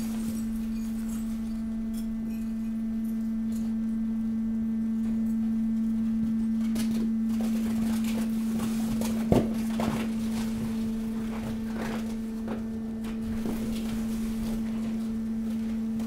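Hydraulic waste compactor running with a steady hum, while the mixed waste in its hopper (cardboard, plastic film and packaging) crackles and snaps as it is pressed, more often in the second half, with one sharp crack about nine seconds in.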